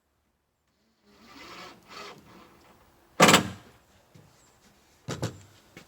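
Wooden boards being handled: some rubbing and creaking, then two sharp knocks of wood on wood, the first about three seconds in and louder, the second about two seconds later.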